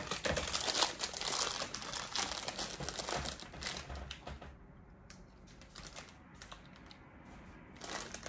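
A plastic chip bag crinkling loudly as it is opened and handled, dense for about the first four seconds, then fainter, scattered rustles.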